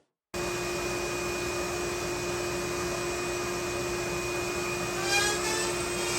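A steady mechanical whir with a constant hum, starting after a brief moment of silence; about five seconds in, faint rising whines join it.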